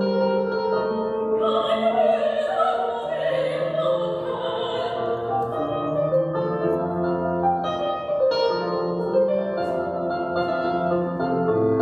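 Operatic-style classical singing with vibrato, accompanied by a digital piano.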